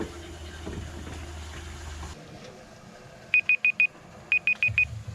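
A low steady drone that stops suddenly about two seconds in, then a high electronic beeper sounding in quick groups of four beeps, about one group a second, three groups in all.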